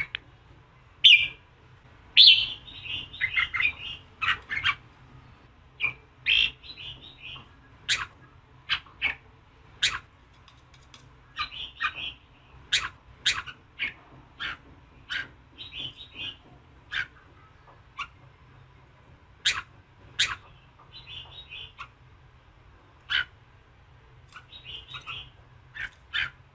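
Red-whiskered bulbul singing a combative, fired-up male song: sharp single notes every second or so, between short, quick warbled phrases.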